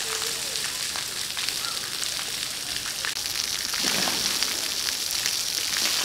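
Water from splash-pad fountain jets spraying and falling onto the wet play surface: a steady hiss that starts and stops abruptly.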